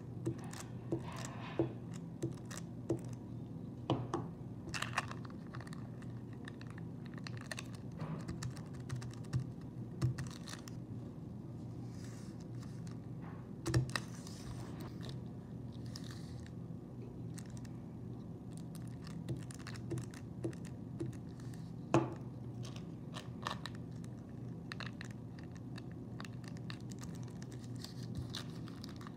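Thin kite paper being folded, creased and smoothed by hand: soft rustles and crinkles with scattered light taps and a few sharper clicks, over a steady low hum.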